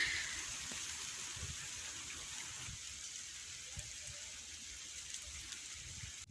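Light rain (drizzle) falling steadily, a faint, even hiss.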